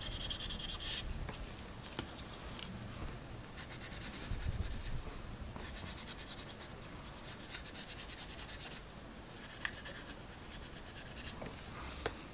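A paintbrush scrubbing in quick back-and-forth strokes against the plastic of a scale-model fuel tank, blending in oil-paint weathering. The rubbing comes in several bursts with short pauses between them.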